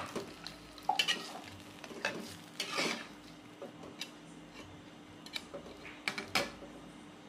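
Metal spatula and ladle knocking and scraping against a wok as prawns in broth are stirred: scattered sharp clinks, the loudest about one, two, three and six seconds in, over a faint steady hum.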